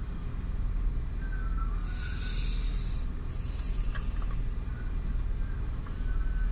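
Steady low rumble of wind and machinery on an offshore rig, with a short burst of hiss about two seconds in.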